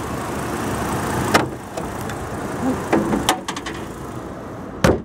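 Chevrolet Colorado's 3.7-litre Vortec inline-five engine idling steadily with the hood open. A few light clicks and one sharp knock near the end.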